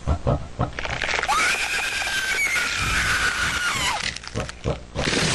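One long, high-pitched squealing cry that rises at the start, holds for about three seconds and falls away, set among crackling clicks and static from the horror animation's soundtrack.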